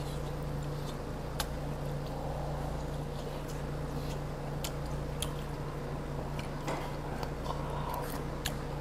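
Close-up sounds of a man eating sundae-guk: chewing, with sharp clicks of a metal spoon against the earthenware bowl scattered throughout, over a steady low hum.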